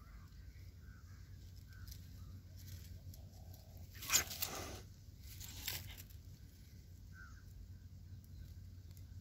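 Tabby kitten hissing twice: one loud hiss lasting nearly a second as it swipes a paw at an approaching dog, then a shorter, weaker hiss about a second and a half later, a defensive warning.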